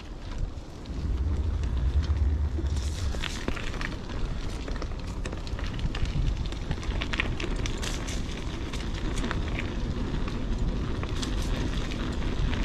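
Wind rumbling on the microphone during a downhill ride on a Huffy Good Vibrations klunker bicycle, with scattered clicks and crackles from the tyres and the rattling bike.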